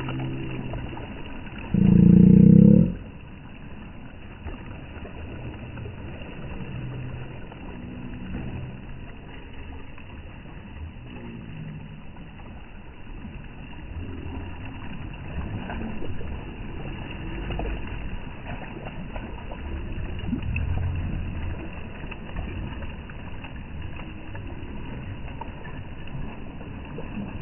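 Seaside ambience: steady wind and sea noise with faint scattered voices. One loud, low, pitched sound about a second long comes about two seconds in.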